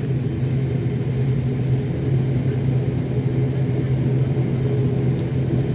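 Steady drone of an airliner's engines heard inside the passenger cabin, a continuous low hum that holds one pitch.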